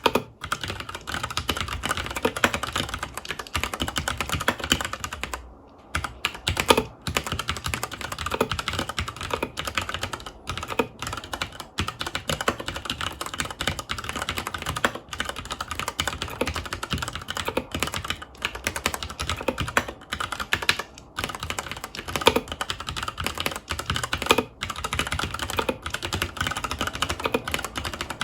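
Fast, continuous typing on a FILCO Majestouch 2 HAKUA tenkeyless mechanical keyboard with Cherry MX Brown switches: a dense stream of key clacks with a short pause about five and a half seconds in.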